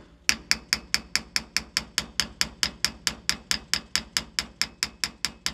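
A large hammer rapidly tapping a roll pin into a rifle bolt held in a vise, about six light, even taps a second, to drive the pin that retains the firing pin.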